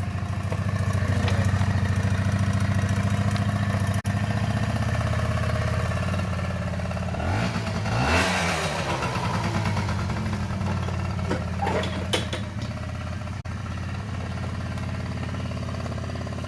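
Honda SA50 scooter's small two-stroke engine running, its pitch bending and loudest as the scooter passes close about eight seconds in.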